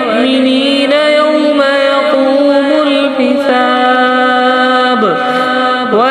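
A single voice reciting in a slow melodic chant, holding long drawn-out notes with ornamented glides between them and no instruments, in the style of Quranic recitation.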